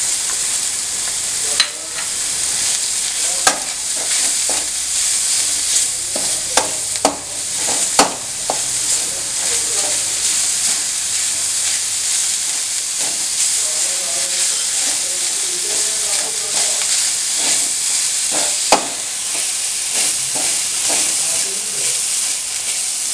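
A spice, onion and grated-coconut mixture frying in hot coconut oil in a pan, sizzling steadily while a spatula stirs it. There are a few sharp knocks of the spatula against the pan, most of them in the first eight seconds and one more near the end.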